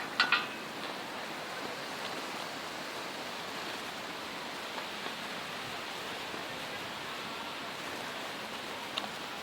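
Steady rushing wind, with two sharp clicks right at the start and a single click near the end.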